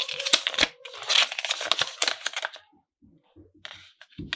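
Crinkling and tearing of thin material for about two and a half seconds, followed by a few soft knocks near the end.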